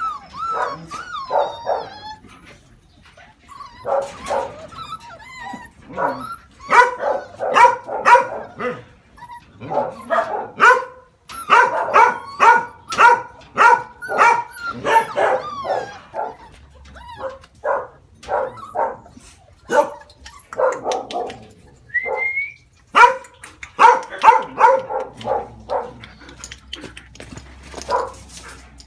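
Puppies about six weeks old yapping in quick runs of short, high barks, with brief pauses between the runs and a single rising yelp about three-quarters of the way through.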